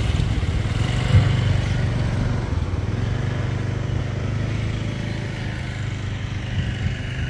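Motor vehicle engine running steadily, a low hum that slowly grows fainter, with one brief knock about a second in.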